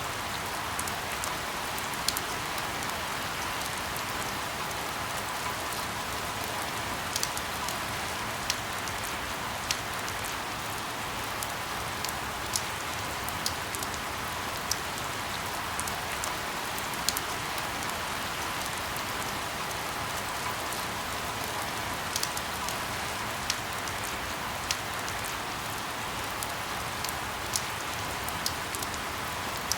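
Steady rain falling on a surface, an even hiss with frequent sharp drops ticking through it.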